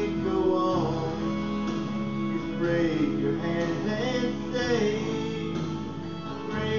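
A man singing a church song into a microphone over guitar accompaniment.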